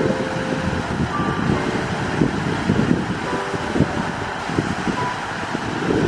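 Fountain jets splashing steadily, with wind gusting on the microphone in an irregular low rumble.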